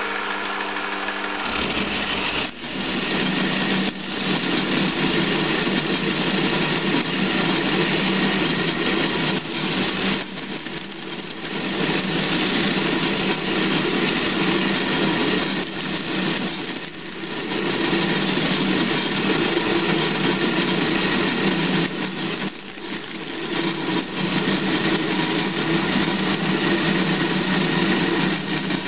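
JET benchtop milling machine running, its end mill roughing down a cast-iron blank under hand feed: a steady motor hum under the rasp of the cut. The cutting noise eases off briefly about five times as the feed is worked.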